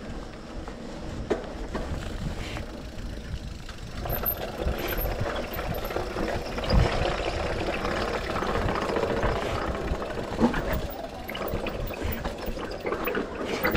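Enduro mountain bike (GT Sanction) ridden fast down a dirt trail, heard from a chest-mounted camera: a continuous rush of tyre, trail and wind noise with rattling from the bike. It grows louder about four seconds in as speed picks up, and there are scattered knocks from hitting bumps and roots, the hardest about seven seconds in.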